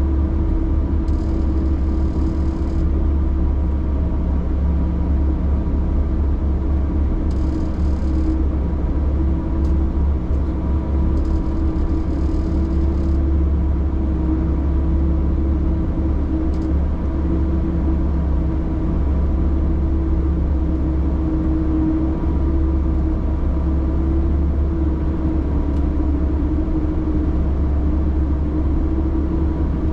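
A vehicle driving over snow: its engine and running gear make a steady low drone with a constant hum, and a few brief faint hisses come in the first half.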